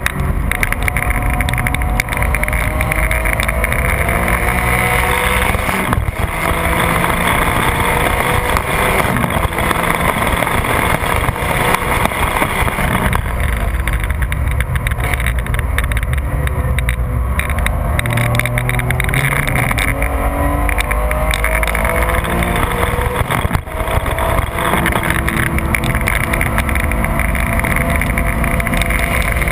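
Porsche 996 GT3's flat-six engine at full throttle on track, its pitch climbing through the gears with brief breaks between pulls, over constant wind and tyre noise.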